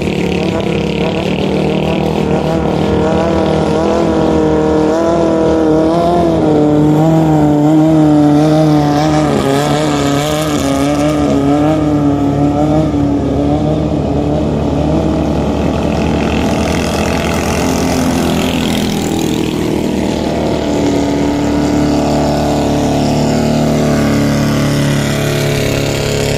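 Thai longtail racing boat engines running at high revs, their engine note wavering up and down as they race along the water.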